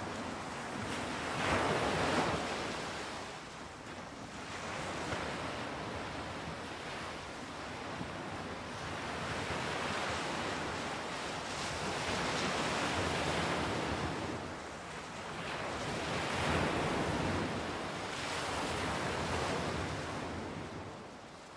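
Ocean surf: waves breaking and washing in, the rush of water swelling and ebbing every few seconds, then dying away near the end.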